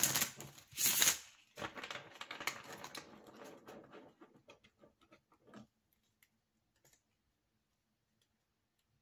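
Tarot cards being riffle-shuffled and bridged: a loud ripple of cards falling together about a second in, then softer clicks and taps as the deck is squared in the hands, stopping after about five and a half seconds.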